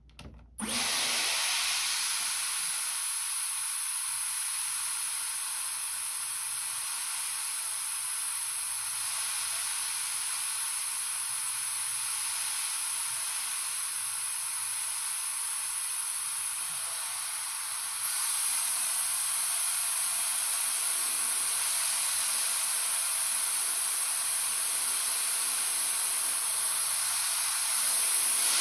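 Dyson Airwrap hair styler switched on about half a second in, its high-speed motor running with a steady high-pitched whine over rushing air. It steps up louder about two-thirds of the way through, and again near the end, as the power setting is raised.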